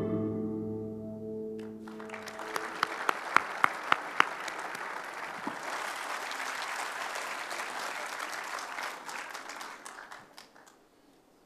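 An audience applauding, with a few louder sharp claps early on, dying away near the end. Slow ambient music with sustained tones fades out during the first couple of seconds.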